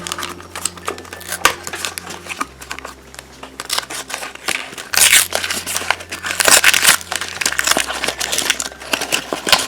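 Plastic packaging of a Shopkins blind basket crinkling and tearing as it is handled and opened, in irregular bursts of rustling that are busiest past the middle.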